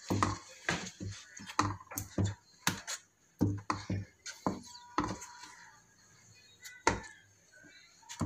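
A spatula stirring thick rice-flour batter in a metal pan, knocking and scraping against the pan in quick, irregular strokes. The batter is being cooked until it turns thick.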